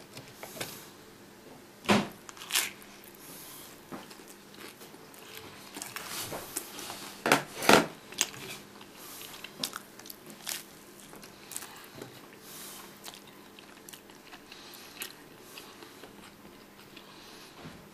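Crisp toast soldiers being bitten and chewed close to the microphone: two loud crunches about two seconds in and two more a little before the middle, with lighter crackles between.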